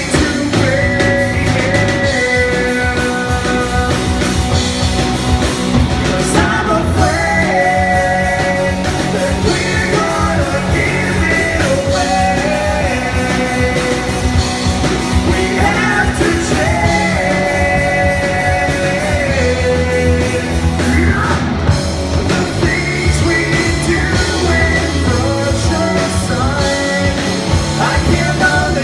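A rock song performed live: a singer over a full band.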